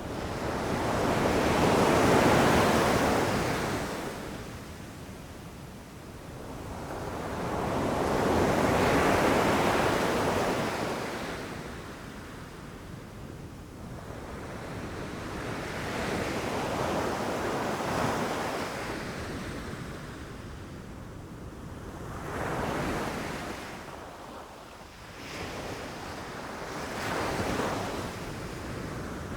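Ocean waves rushing in and crashing on the shore, each one swelling up and washing back out over several seconds. Two big waves come in the first ten seconds, then a run of smaller ones.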